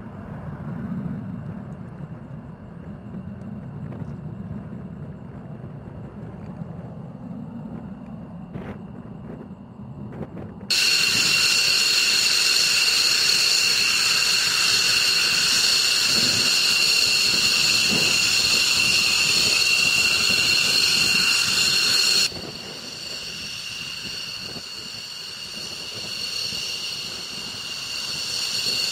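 Twin-turbofan jet engines of F-15E Strike Eagles. For the first ten seconds there is a low, distant rumble of a jet that has taken off. Then a loud, steady, high-pitched turbine whine starts suddenly as an F-15E taxis head-on, and it cuts abruptly to a quieter whine as another Strike Eagle rolls past, growing a little louder near the end.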